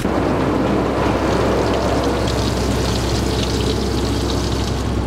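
Car wash water jets spraying onto a car, a steady hiss of water over the constant low hum of the wash machinery, setting in suddenly.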